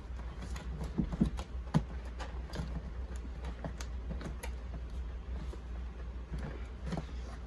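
Cardboard turntable box being handled and opened: scattered irregular taps, clicks and light knocks over a steady low hum.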